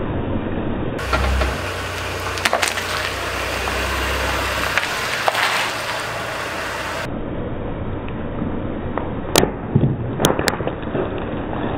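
A car tyre rolling slowly over soft objects such as bananas on brick paving, squashing them. A low rumble of the car runs through the first half, and a few sharp cracks and crunches come as things give way under the wheel, three close together near the end.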